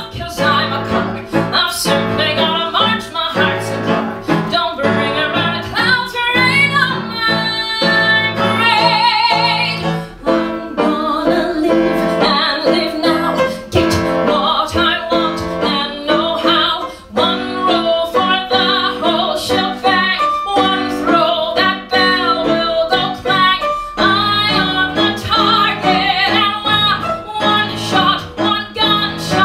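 A woman belting a Broadway show tune over instrumental accompaniment, with a long held note sung in vibrato about eight seconds in.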